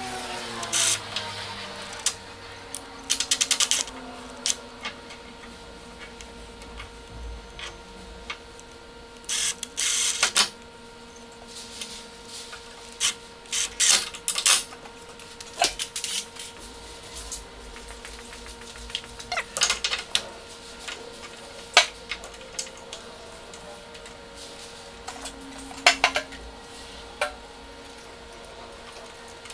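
A hand screwdriver drives short wood screws through a metal motor bracket into a wooden 2x4. There are irregular clicks, short scrapes and metallic clinks of the tool, screws and bracket, with pauses between them.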